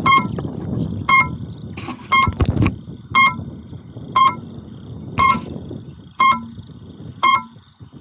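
FPV quadcopter's onboard buzzer beeping about once a second, short evenly spaced beeps, while the drone sits on the ground. Wind buffets the microphone underneath, and a faint steady high whine runs along with it.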